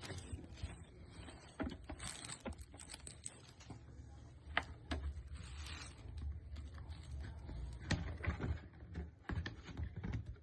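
Irregular plastic clicks, taps and rustling as a 2-litre plastic water bottle and its packaging are handled.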